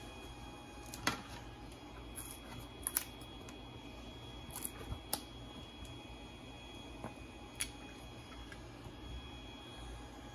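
3D printer's fans running with a faint steady hum and thin whine. Over it come a handful of light clicks and taps as the flexible magnetic build plate is handled and peeled off the printer bed.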